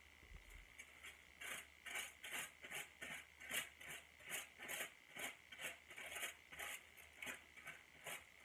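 Tint brush strokes spreading hair lightener over a section of hair laid on aluminium foil: a quick run of short, scratchy swipes with faint foil rustle, about two or three a second, starting about a second and a half in.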